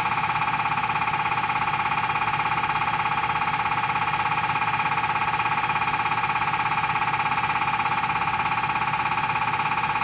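Common rail diesel injector on a CRI100A injector test bench firing over and over, a rapid, even ticking buzz at a steady rate.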